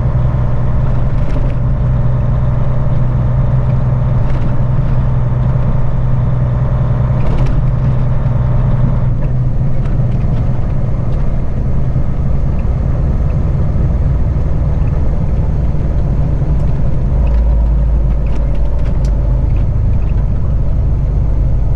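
Semi truck's diesel engine heard from inside the cab, running steadily with a constant low drone. About seventeen seconds in, a deeper low rumble grows stronger.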